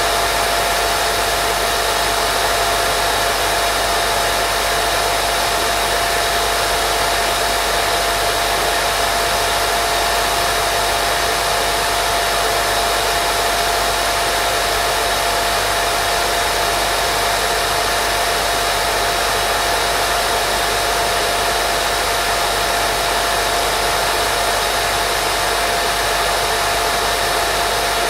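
Continuous white noise for baby sleep: an even, unchanging hiss with a steady hum-like tone running through it.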